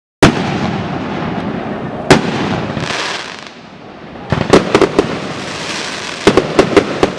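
Fireworks going off: a sharp bang just after a brief silent gap, another about two seconds in, a hiss around three seconds, then two quick clusters of cracking bangs, over a steady din of more fireworks.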